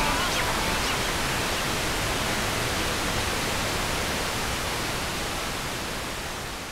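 Steady static hiss, a rushing noise with no tone or rhythm, that slowly fades out toward the end. It is the kind of video-tape noise laid under a glitching VHS-style title card.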